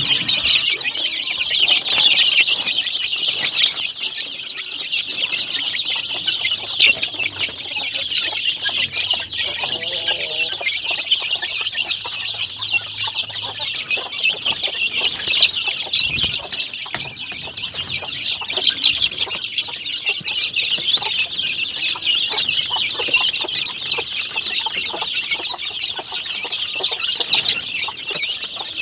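A flock of young chickens peeping without a break, many short high-pitched calls overlapping into a steady chatter.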